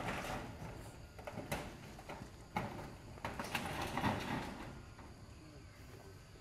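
Monkeys moving about on sandy, leaf-strewn ground: irregular rustles, scuffs and light taps, busiest in the first four seconds and dying down near the end.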